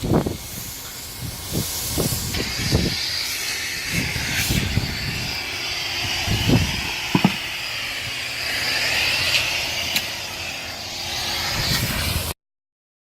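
3M Accu-Spray HVLP turbine spray gun hissing steadily as it sprays clear coat, with a few short low knocks. The hiss cuts off abruptly near the end.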